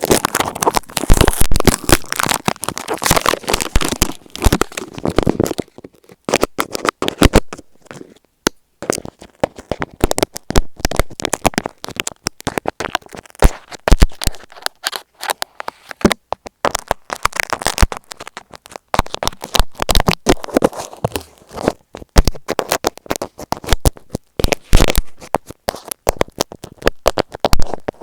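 Tape stuck over an Apple EarPods earphone microphone being poked and rubbed with a small tool right at the mic: dense, irregular crackling clicks and scratchy rubbing, with a brief pause about eight seconds in.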